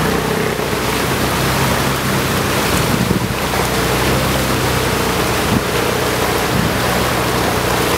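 Floodwater rushing fast across a flooded road, a steady loud rush of water, with a faint steady hum underneath.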